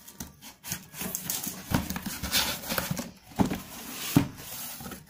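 Box cutter slicing along the seam of a cardboard shipping box, then the cardboard handled and pulled open: irregular scraping and rustling with a few sharp knocks.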